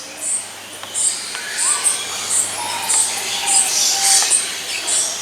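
Several birds calling: short, very high chirps repeated about twice a second, mixed with a few lower whistled notes that slide in pitch.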